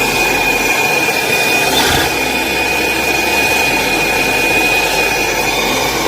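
Steady machine noise with a constant high whine throughout.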